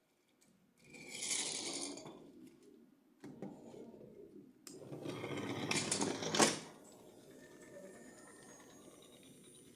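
Handling noise from unboxing: two bursts of rustling and clattering, the second ending in a sharp click about six and a half seconds in.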